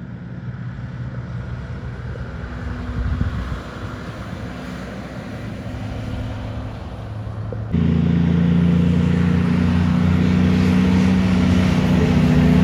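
Heavy truck diesel engines running at a steady pitch as trucks pass. About eight seconds in, the sound jumps abruptly louder to a closer truck's deep, steady engine drone.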